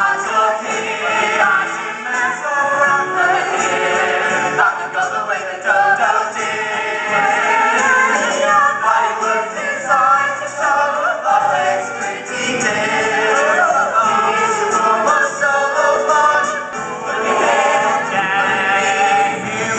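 Musical-theatre ensemble singing together with instrumental accompaniment, many voices at once.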